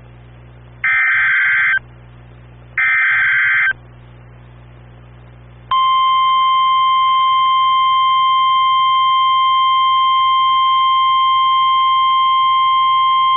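NOAA Weather Radio KEC95 alert signal. It gives two one-second bursts of SAME digital header data about two seconds apart, then, about six seconds in, the steady 1050 Hz warning alarm tone. The alarm tone marks a warning-level alert, here a severe thunderstorm warning.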